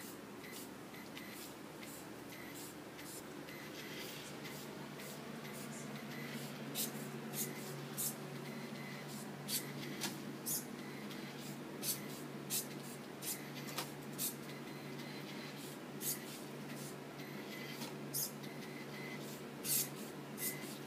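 Small electric motors of a homemade obstacle-avoiding RC car running: a steady low hum that sets in a few seconds in, with many short sharp clicks at irregular intervals, most often in the second half.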